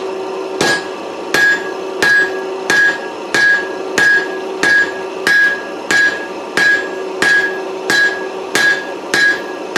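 Heavy rounding hammer striking hot 4140 steel on the anvil horn with its flat face, drawing a four-sided taper. The blows come in an even rhythm, about fourteen of them at roughly three every two seconds, each with a short metallic ring. A steady hum runs underneath.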